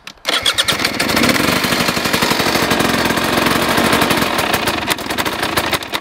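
Husqvarna TE300i's two-stroke single-cylinder engine, fitted with an FMF front pipe and rear silencer, starts a fraction of a second in and runs steadily with a rapid crackle of firing strokes, then is shut off right at the end.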